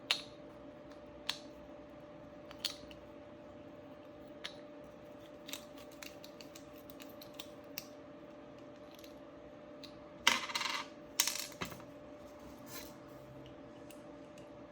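Light metallic clicks and clinks as a lock and small metal tools are handled, with two louder clattering bursts of metal about ten and eleven seconds in.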